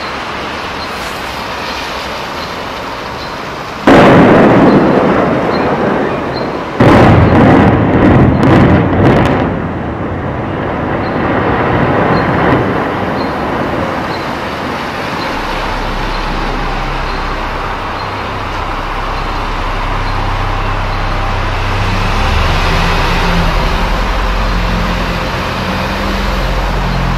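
Explosive demolition of a high-rise tower block of flats: a sudden loud blast about four seconds in, then a second loud burst about three seconds later with a quick run of sharp cracks, settling into a long low rumble as the building collapses.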